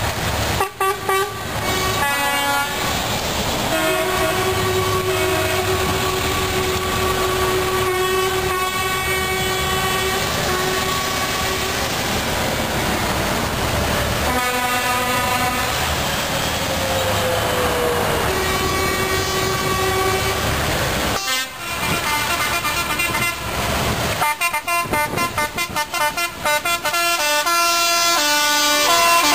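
Lorries in a passing convoy sounding their horns in long held blasts over the rumble of their diesel engines, one horn dropping in pitch as it goes by. Near the end many horns toot in quick, choppy succession.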